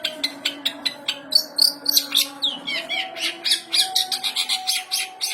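Long-tailed shrike singing nonstop: a rapid string of harsh chirps and sharp downslurred notes, about five or six a second, copying the chirping of Eurasian tree sparrows.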